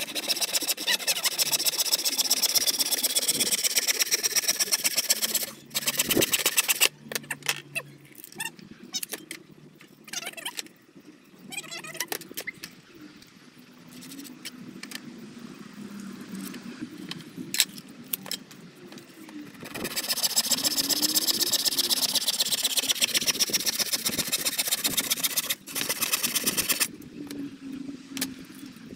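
Hand saw cutting through a wooden board with fast, steady back-and-forth strokes for the first several seconds and again for about seven seconds near the end. In between come slower, lighter strokes.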